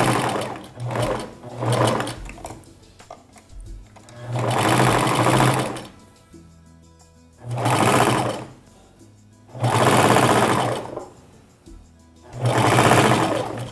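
Domestic straight-stitch sewing machine stitching in stop-start runs: three short bursts in the first two seconds, then four longer runs of about a second each with pauses between, as the bra cup is sewn on a little at a time.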